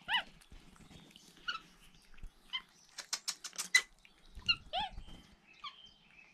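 Capuchin monkeys giving short chirping calls that rise and fall, about half a dozen spread through the stretch, while they eat. A quick run of clicks and rustling comes just past the middle.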